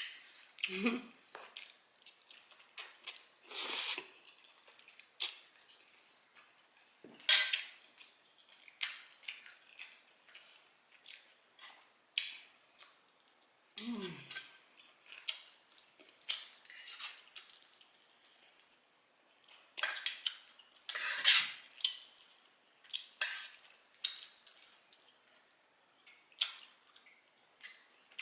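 A fork clinking and scraping on a dinner plate of spaghetti in scattered sharp clicks, with the mouth sounds of eating.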